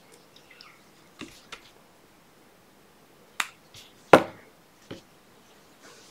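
A handful of sharp clicks and taps from fly-tying tools and materials being handled at the vise, the loudest about four seconds in.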